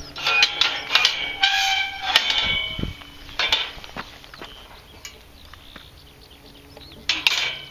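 Galvanised steel field gate being worked: metal squealing with clanks through the first three seconds, then another short squeal and clank about seven seconds in.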